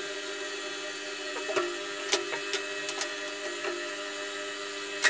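Milling machine running while power-tapping a steel plate with a spiral-flute machine tap: a steady hum with a few sharp clicks scattered through it.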